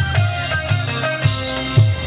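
Loud amplified party music with a steady beat, bass and guitar.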